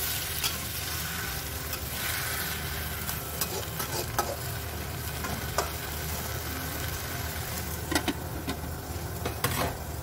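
Sweet potato leaves and anchovies sizzling in a wok as a metal spatula stir-fries them, with scattered scrapes and knocks of the spatula against the pan.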